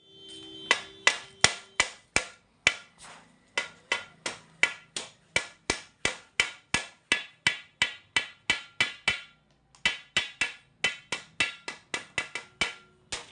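Repeated hammer blows, about three a second, each with a short ring, broken by two brief pauses.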